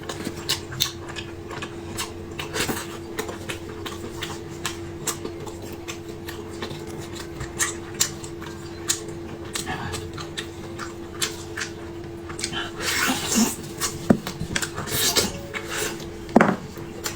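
Close-miked eating sounds: chewing with crisp crunches and wet mouth clicks, coming in clusters, with louder bursts of crunching in the last few seconds, over a steady low hum.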